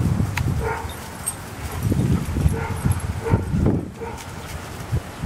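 A dog barking over and over at a fairly even pace, roughly one short bark every half to one second, with bursts of low rumbling noise underneath.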